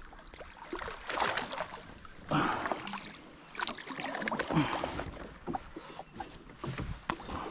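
Paddle strokes in water: irregular splashing dips and swishes, roughly one every second.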